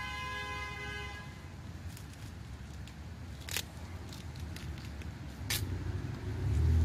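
A car horn sounds as one steady held tone, ending about a second in. Then come two sharp cracks a couple of seconds apart as a small watermelon is torn apart by hand, over a low background rumble.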